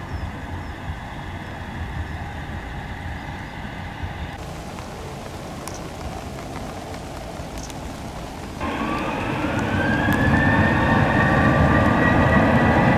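Boeing 737-800 jet engines: a steady whine at low power, then about two-thirds of the way through a rising whine over a rumble that grows steadily louder as the engines spool up for takeoff.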